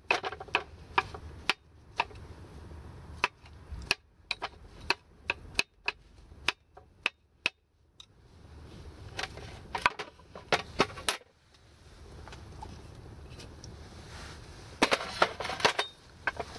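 Kitchen knife chopping mushroom stems on a wooden cutting board: irregular sharp knocks of the blade striking the board. There is a short pause about halfway through and a quick run of chops near the end.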